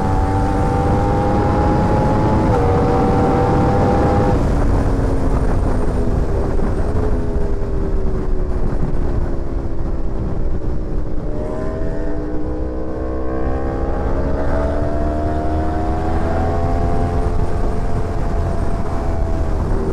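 Sportbike engine running at speed, its pitch stepping at gear changes over the first few seconds, then falling away for several seconds as it slows. About halfway through it climbs again, holds, and eases off near the end.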